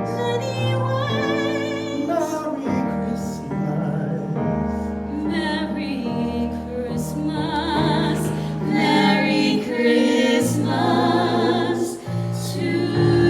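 A woman singing a slow ballad, holding long notes with a wide vibrato, over piano accompaniment.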